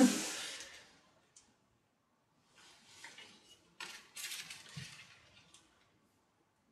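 Faint handling noises: a few short rustles and light clatters about three to five seconds in, with one soft thump among them.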